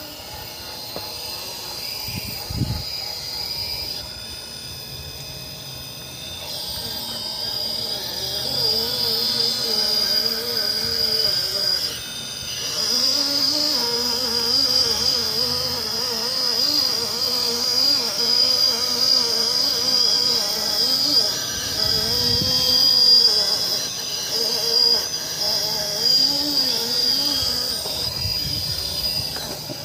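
The 2500kv brushless Revolver motor and drivetrain of an Axial AX10 crawler whining under a Sidewinder 4 speed controller. The pitch of the motor wavers up and down with the throttle and gets louder about eight seconds in, over a steady high-pitched whine.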